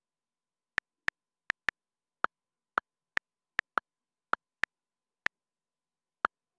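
Smartphone keyboard clicks as someone types on the touchscreen: about thirteen short, sharp taps at an uneven typing pace, with nothing else heard between them.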